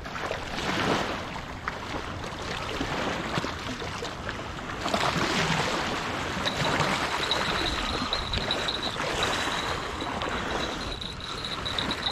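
River water lapping and splashing with wind noise, a steady rushing hiss. About halfway through, a thin high whine joins it and holds.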